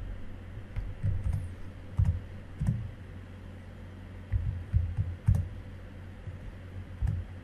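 Scattered, irregular taps on a computer keyboard, about ten in all, over a low steady hum.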